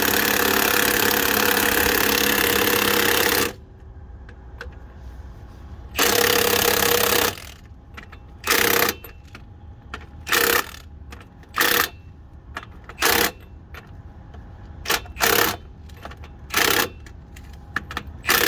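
Pneumatic impact wrench hammering in bursts, running down the fasteners as the axle is bolted back together: a long run of about three and a half seconds at the start, another run of about a second, then a string of short blips.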